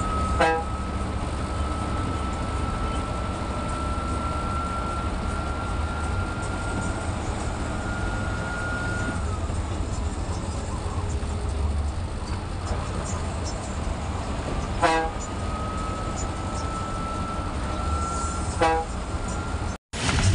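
Ashok Leyland BS-3 bus engine running steadily at road speed, heard from inside the driver's cab, with a thin high whine that slowly rises in pitch. Short horn toots sound about half a second in, about 15 s in and again near the end.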